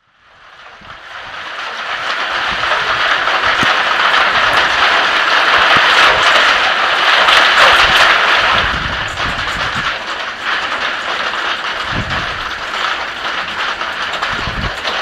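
Heavy thunderstorm rain pouring down: a loud, steady hiss that fades in over the first two seconds. A few low rumbles come in over it near the end.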